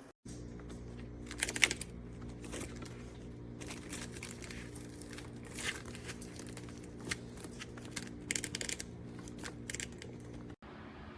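A small drip coffee maker brewing: a steady hum under irregular crackling and sputtering bursts as the hot water pushes through.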